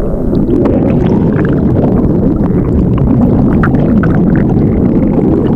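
Stomach growling, heard as a loud, steady low rumble.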